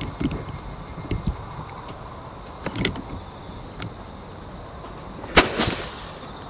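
Scattered clicks and knocks from a rifle and its scope being handled on a padded rest, with one loud sharp clack about five seconds in. Insects whine steadily in the background.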